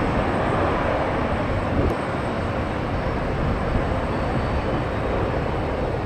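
Jet airliner engines, a steady, loud roar without breaks.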